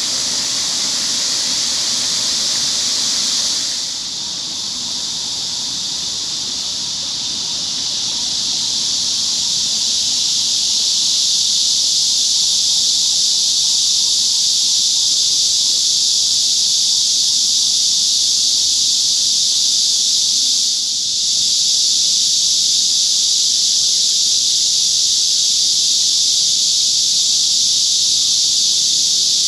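Chorus of cicadas making a loud, steady, dense buzzing hiss. It dips briefly about four seconds in and again around twenty seconds, and swells louder after about ten seconds.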